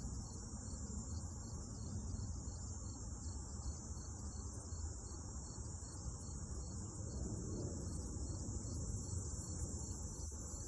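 Evening insect chorus of crickets: a steady high trill with a faint regular chirp about three times a second, over a low background rumble.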